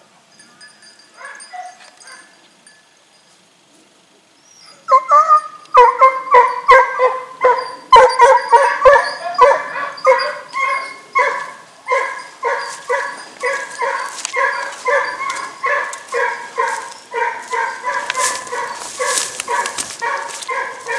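Hunting hounds baying as they follow a wild boar's scent trail. After a few quiet seconds the barking starts about five seconds in and keeps going in a rapid, even run of two or three barks a second.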